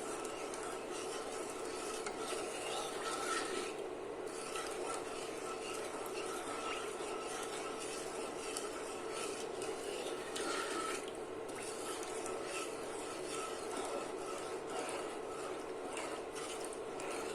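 Spoon stirring granulated sugar into water in a pot, a steady continuous stirring while the sugar is still dissolving to make syrup.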